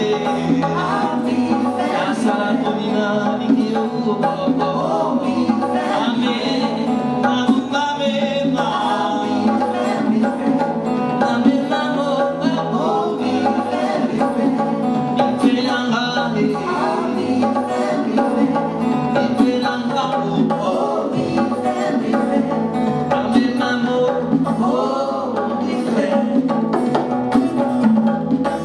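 Live music: a man sings over a steadily plucked acoustic guitar, with percussion keeping time underneath.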